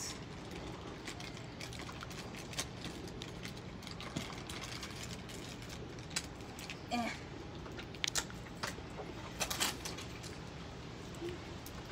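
Thin plastic bag crinkling in short, irregular bursts as a small trinket is worked out of it by hand, over a low steady hum.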